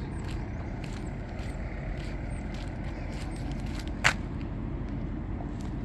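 Steady low outdoor rumble with scattered faint clicks, and one sharp click about four seconds in.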